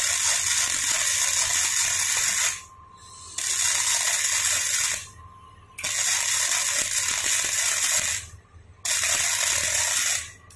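Gasless flux-core MIG welder (Daiden MIGI 130) arcing on thin 1.6–1.7 mm steel at a low setting. It gives a loud crackling hiss in four runs of one to three seconds, stopping and restarting between them.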